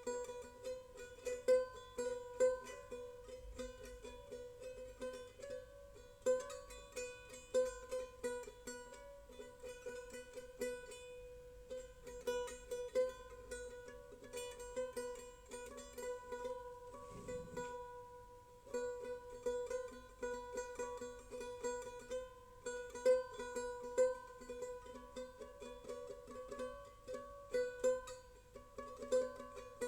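Background music of plucked strings, like a mandolin or ukulele, picking a light rhythmic tune, with a short break about two-thirds of the way through.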